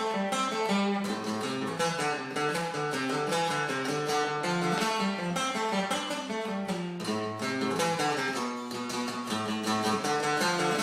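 Instrumental music: a guitar picked in quick, busy notes.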